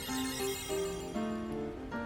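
Background music: a light melody of plucked or bell-like notes with a shimmering high layer.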